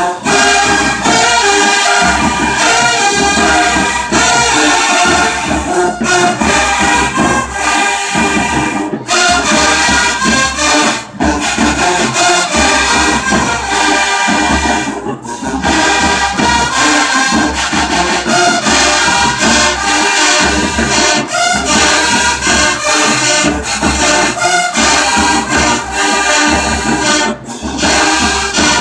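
A marching band playing loudly: brass section with drums keeping a steady beat, with a few brief breaks in the playing.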